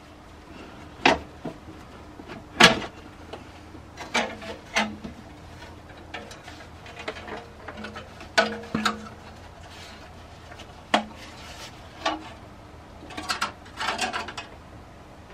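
BMW N52 engine's rocker cover being worked free and lifted out past the engine bay parts: scattered knocks and clunks, the sharpest about three seconds in, with a run of scraping and rattling near the end.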